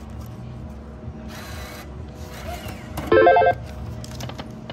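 Slot machine electronic sounds over a steady casino hum: a short hiss about a second in, then the loudest part, a half-second burst of rapid bell-like ringing tones about three seconds in, while the reels spin.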